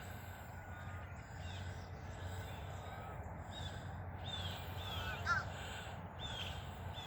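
Birds calling: a series of short, high, downward-sliding chirps repeating about every two-thirds of a second, with one louder call about five seconds in, over a low steady hum.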